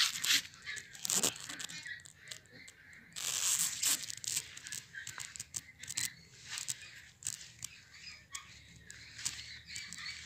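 Clumps of leafy thạch thảo seedlings being pulled apart by hand: roots and stems tearing and leaves rustling, with sharp snaps throughout and a longer tearing stretch a few seconds in.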